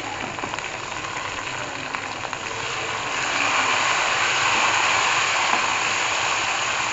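Chopped tomatoes and chillies sizzling in hot ghee with fried onions in an aluminium pot as they are stirred with a spoon, with a few light spoon scrapes in the first couple of seconds. The sizzle grows louder about three seconds in.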